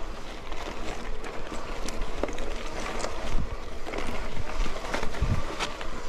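Hardtail cross-country mountain bike, a Canyon Exceed CF, ridden over rough wet trail: a steady rush of tyre and wind noise with scattered knocks and rattles from the bike over bumps.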